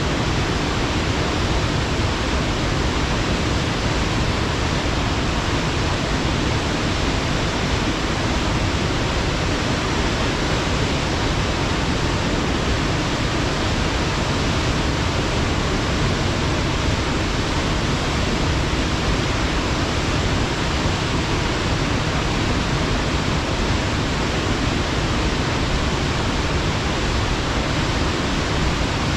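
Waterfall: a steady, unbroken rush of water falling onto rock, full and low.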